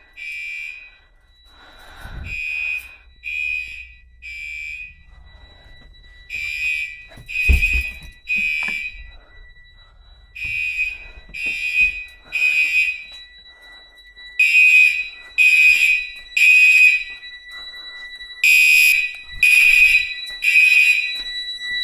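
Fire alarm horns sounding the temporal-3 evacuation pattern: groups of three short blasts with a pause between groups, the system in alarm after a smoke detector was tested. A thin steady high tone runs underneath.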